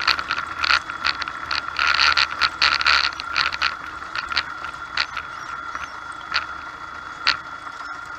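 Mooney M20C's four-cylinder Lycoming engine idling as the plane rolls out on a grass strip, with a steady high whine under it. The airframe and cabin rattle and knock over the rough grass, the knocks coming thick at first and thinning out about halfway as the plane slows.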